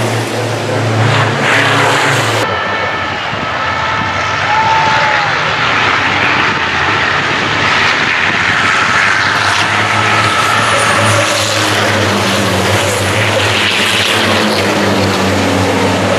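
Racing trucks' diesel engines running hard as a pack of race trucks goes through a bend, a steady low drone under a hiss of engine and tyre noise. The sound shifts about two and a half seconds in.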